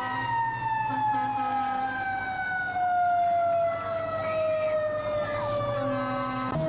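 Fire engine siren winding slowly down in pitch for about six seconds. After an abrupt jump near the end it holds a steady lower note.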